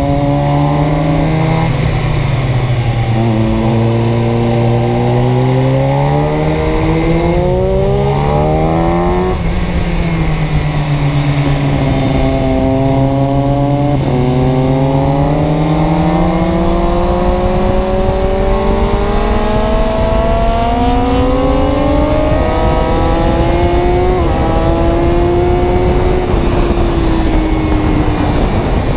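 A vehicle engine running continuously, its pitch climbing and falling again and again as it speeds up and slows. There are sudden drops in pitch twice, about halfway through and near the end.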